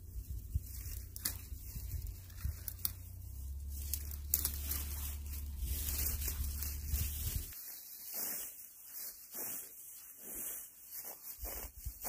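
Pine branches and dry brush being cut with a hand pruning tool: rasping, scraping strokes, coming at about two a second in the second half.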